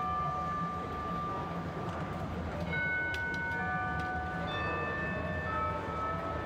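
Sound from a building projection show: several long, steady high tones at different pitches overlapping and changing every second or two, like chimes or whistles, over a constant low rumble.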